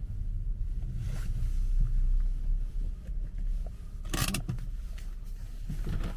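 Low road and drivetrain rumble of a 2009 BMW 5 Series, heard from inside its boot. About four seconds in comes a short, sharp clatter of knocks: a loose wheeled box rolling in the boot and banging, the cause of the rear clunk.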